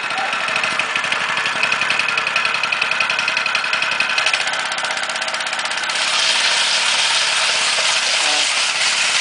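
Small petrol engine of a concrete power trowel running steadily with a fast, even beat, getting a little louder and rougher about six seconds in.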